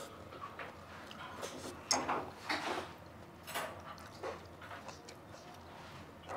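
Table eating sounds: metal chopsticks and spoons clicking and scraping against earthenware ttukbaegi bowls of bone soup, as a scatter of short, faint clicks and brief noises.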